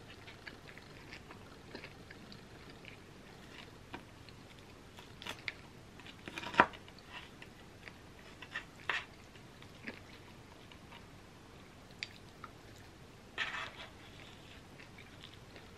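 Close-up chewing and mouth sounds of eating soft, gooey cookie pizza, with scattered sharp clicks; the loudest comes about six and a half seconds in. Near the end a metal spoon scrapes and digs into the cookie in its pan for the next bite.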